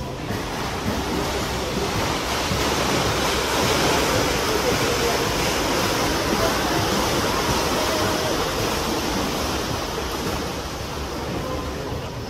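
Steady wash of splashing water in a swimming pool, with faint distant voices.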